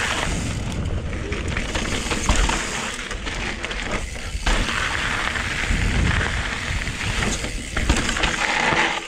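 Electric mountain bike riding fast down a loose, rocky dirt trail: tyres crunching and skidding over dirt and stones, the bike rattling over bumps, and wind buffeting the microphone. The noise dips briefly twice, about four and seven and a half seconds in.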